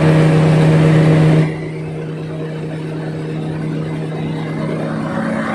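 A large machine engine running with a steady hum. It is loud at first, drops abruptly about one and a half seconds in, then slowly builds again.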